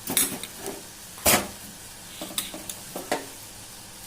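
A spoon knocking and scraping against a pan of boiling tea as sugar is added and stirred in: several short clinks, the loudest about a second in, over a steady low hiss.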